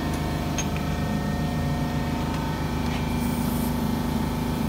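Steady machine hum with an even pitch, with a short hiss about three seconds in.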